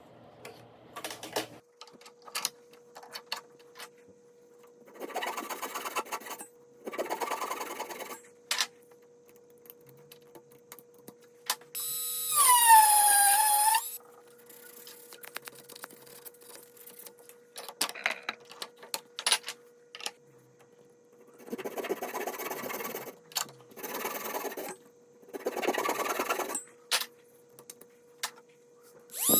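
Woodworking sounds: sharp clicks and knocks of wooden parts being handled, several short scraping strokes on wood, and about twelve seconds in a small power-tool motor running for about two seconds, its whine dropping in pitch as it slows.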